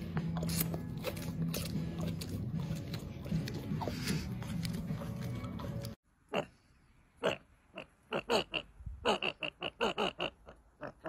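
A dog gnawing a chew bone, with scattered clicks and scrapes over a low steady hum. About six seconds in, the sound cuts to pugs giving a string of short, sharp, falling calls, some in quick runs, louder than the chewing.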